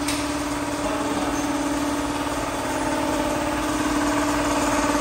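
Air compressor running with a steady motor hum, feeding the air line to a pneumatic nailer. A single sharp click comes right at the start.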